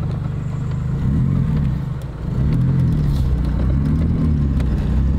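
Nissan SR20DET turbocharged 2.0-litre inline-four in a BMW E30, heard from inside the cabin while driving slowly. It revs up and settles back three times, with a brief drop in loudness about two seconds in.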